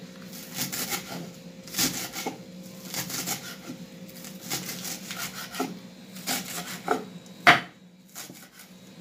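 Kitchen knife chopping fresh cilantro on a wooden cutting board: an irregular series of blade knocks against the board, with one louder knock about seven and a half seconds in.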